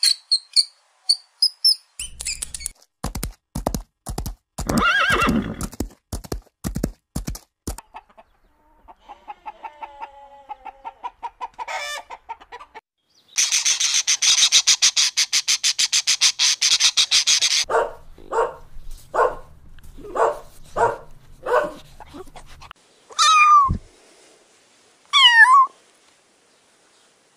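A series of different animal calls, one after another: high chirps, fast clicking, a warbling call, a long harsh chattering stretch, a run of evenly spaced calls, and two high cries that fall in pitch near the end.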